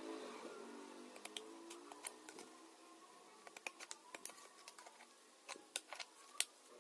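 Irregular light clicks and taps, the loudest near the end, over a faint steady hum.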